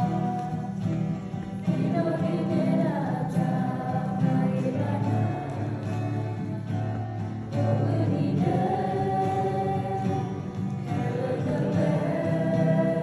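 A small mixed group of voices singing a hymn together, in long held phrases with brief breaks between them.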